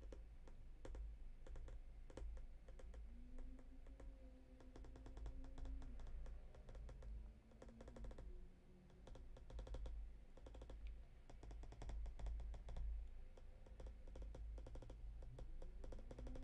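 A stylus tapping and scratching on a tablet's writing surface during handwriting: a quick, irregular run of light clicks, several a second.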